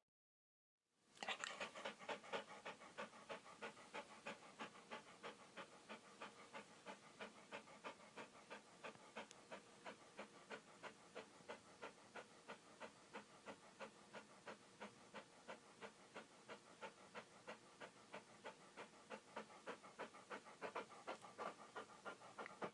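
A dog panting rapidly and steadily, about three quick breaths a second, starting about a second in.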